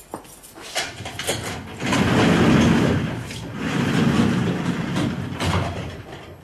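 A few footsteps on a hard floor, then a heavy barred metal cell door sliding along its track in two long stretches, the first about two seconds in and the second about three and a half seconds in.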